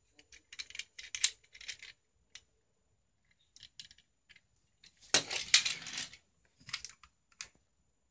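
Small toy cars being handled: scattered clicks and rattles of hard plastic and metal in the hand, with a louder clatter about five seconds in as one car is put down and another picked up.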